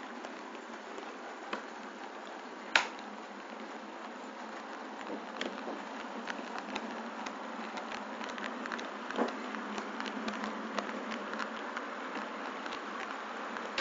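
Model train rolling along the track: a steady rattling hiss of wheels and running gear with many irregular sharp clicks, the sharpest about three seconds in, growing a little louder in the second half.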